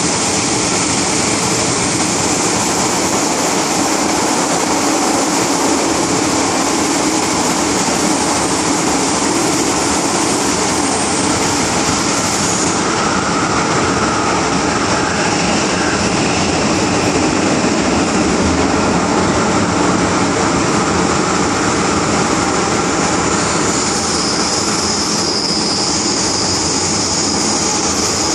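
MTR M-Train electric multiple unit running at speed through a tunnel, heard from inside the carriage: a steady, loud noise of wheels on rails. A higher-pitched whine comes in near the end.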